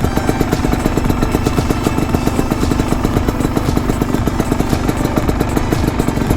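Honda CRM250R's two-stroke single-cylinder engine running steadily, a continuous rapid pulsing.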